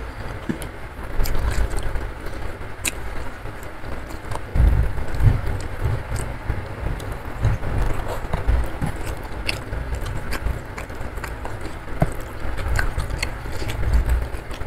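Close-miked eating sounds: chewing, and the wet squish and small clicks of fingers mixing rice with spicy sambal. Underneath runs a steady rain-like rush with deep rumbles that swell about five seconds in and again near the end.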